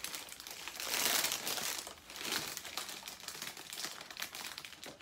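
Clear plastic plant sleeve crinkling as it is handled and pulled away from a potted plant, loudest about a second in.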